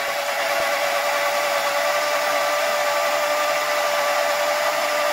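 Countertop blender running at one steady speed, beating raw eggs into a froth, with a steady motor whine.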